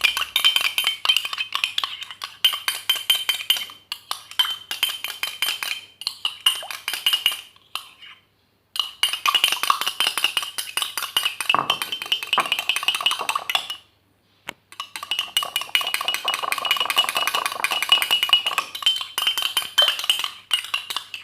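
A utensil briskly stirring a liquid mixture in a ringing container, clinking rapidly against its sides, with two brief pauses about eight and fourteen seconds in.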